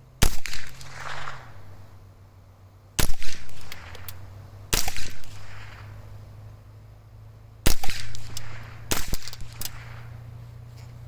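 Unsuppressed .22 LR rifle shots from a Smith & Wesson M&P 15-22: about five sharp cracks a second or more apart, each followed by an echo.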